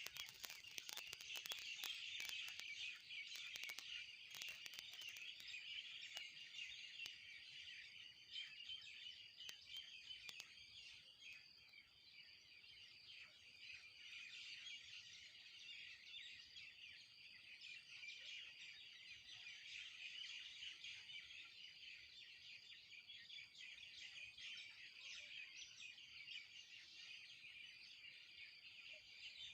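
A faint, dense chorus of many small birds chirping and chattering without a break, with a few scattered faint clicks in the first few seconds.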